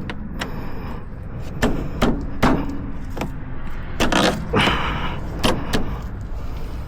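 Irregular metallic knocks, clunks and scrapes as an ATV rear CV axle is pushed and worked into place, over a steady low hum.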